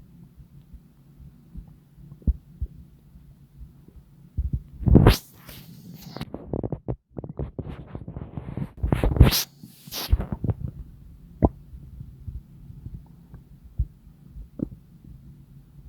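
Stomach rumbling and gurgling: scattered short pops over a low steady hum, with two louder, longer stretches about five and nine seconds in.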